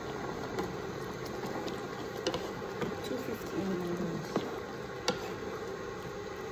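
Curry simmering in a pan with a steady bubbling hiss while a wooden spatula stirs the chicken and potatoes, knocking sharply against the pan a few times, loudest about five seconds in.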